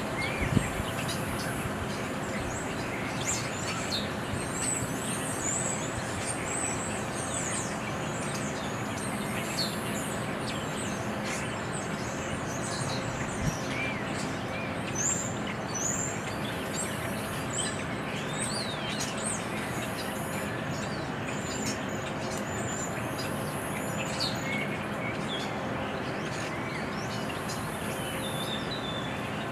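Outdoor ambience: a steady background rumble with a faint hum, typical of distant traffic or building machinery, with birds chirping on and off over it. A brief low knock about half a second in.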